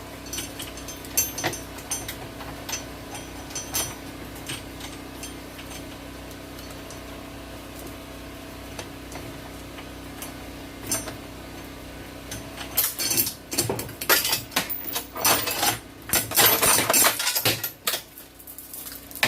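Metal clinking and rattling of a stiff, dirty roller drive chain and hand tools as the chain is worked off a mini bike's sprockets: scattered clicks at first, then a dense, louder run of clattering in the last few seconds. A steady hum sits underneath and stops about two-thirds of the way through.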